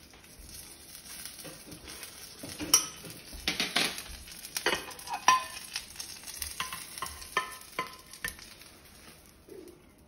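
Omelette soufflé sizzling in butter in a frying pan while a spatula scrapes and taps against the pan as the omelette is loosened and folded: a run of short, irregular scrapes and clicks over a faint sizzle.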